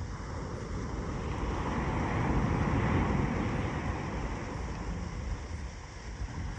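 Wind rushing over the microphone mixed with ocean surf: a steady noisy rush that swells about two seconds in and eases off again.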